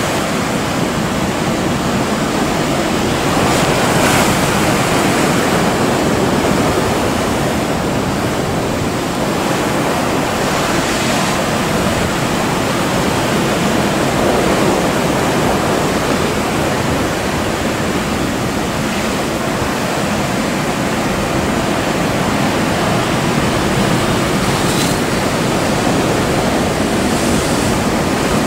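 Heavy ocean swell surging and breaking in a harbour entrance: a loud, steady rush of surf and churning water.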